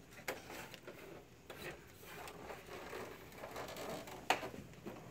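Quiet room with a few scattered sharp clicks and light knocks, the loudest about four seconds in.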